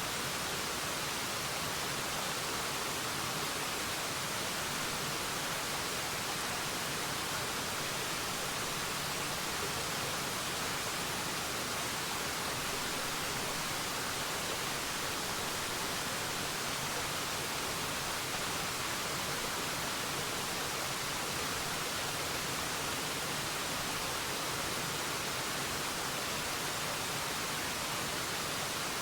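Forest waterfall: water falling in a steady, even rush with a strong hiss and little low rumble, unchanging throughout.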